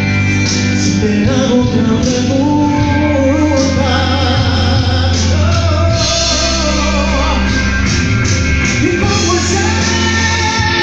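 A man singing live into a handheld microphone over amplified backing music, holding long notes that bend in pitch over a steady bass line.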